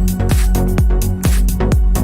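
Electronic dance background music with a steady kick-drum beat, about two beats a second, and hi-hats over it.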